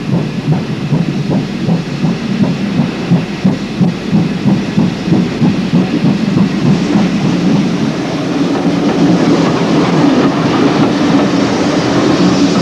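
Great Western 45XX prairie tank steam locomotive working a train away, its exhaust beating about three times a second; about eight seconds in this gives way to a steadier rumble of the train rolling along the track.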